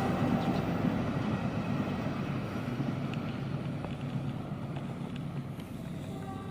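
Passing train moving away, its rumble fading steadily.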